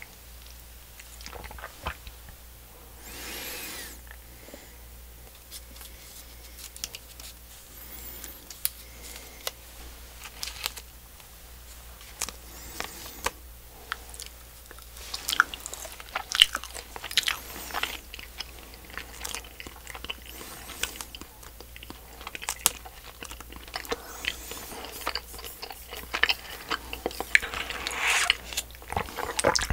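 Close-up chewing and biting of miniature candy hamburgers made from a Popin' Cookin' DIY candy kit, with many small sticky mouth clicks and smacks. The chewing gets busier from about halfway through.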